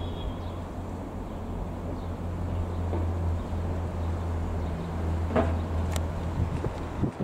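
Dassault Falcon 20 business jet flying overhead at height: a steady, low rumble of its jet engines, which drops away abruptly near the end.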